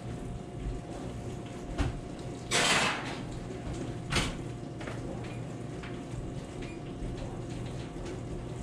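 A baking tray going back into the oven: a knock about two seconds in, a brief scraping rush, then a clack about four seconds in, over a steady low hum.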